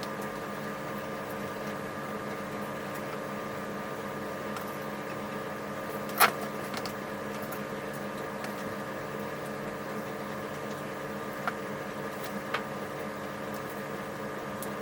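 A steady mechanical hum made of several fixed tones, with a sharp click about six seconds in and two fainter clicks near the end.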